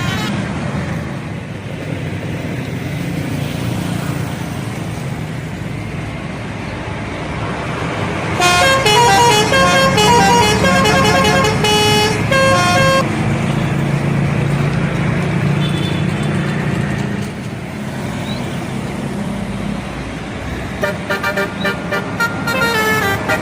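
A bus's telolet horn, a multi-tone musical horn, playing a quick melody of short stepping notes for about four seconds, over steady bus engine and road noise. Near the end a shorter, choppier burst of horn notes sounds.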